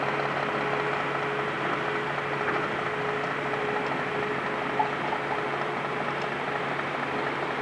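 Terra-Gator 8133 self-propelled slurry injector running steadily as it drives along injecting slurry into the grass, a constant engine note with a steady hum. A single brief tick about five seconds in.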